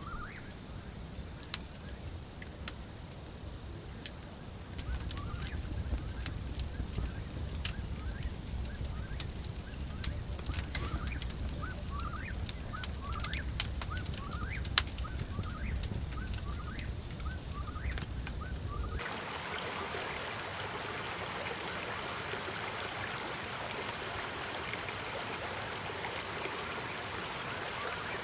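Short bird calls repeated about twice a second over a thin steady high tone, a low rumble and scattered clicks. About two-thirds of the way through, the sound cuts suddenly to the steady rush of a stream.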